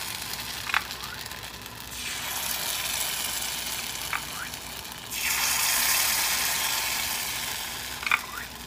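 Batter hitting hot oil in a cast-iron bánh khọt pan, sizzling; the sizzle swells sharply about two and five seconds in as fresh ladlefuls go into the wells. A few light clinks of the ladle against the ceramic batter bowl.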